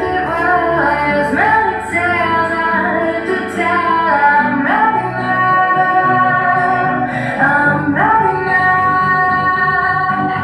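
Slow song with a female singer holding long notes, each phrase sliding up into its first note, over steady accompaniment.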